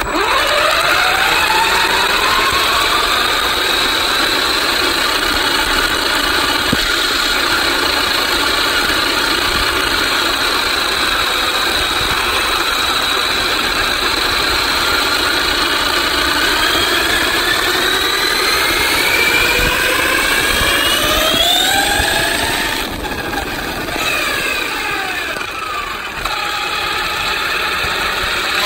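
An RC car's motor and drivetrain whining as it drives along the road, heard up close from a phone mounted on the car, over steady tyre and road noise. The whine rises in pitch as the car speeds up at the start and again about two-thirds of the way through, eases off briefly, then climbs again near the end.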